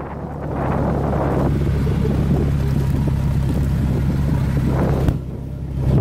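Large off-road truck engine running steadily with a low hum, with wind noise on the microphone; the sound eases briefly about five seconds in.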